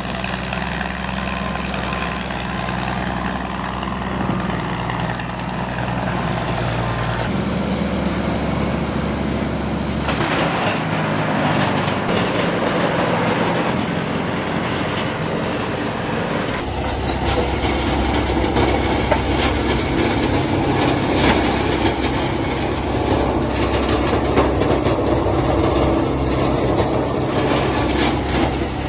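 Industrial wood chipper machines running, a steady motor hum under the noisy crunch of material being fed and chipped, with scattered cracks and snaps. The sound changes abruptly three times, as if between different machines or clips.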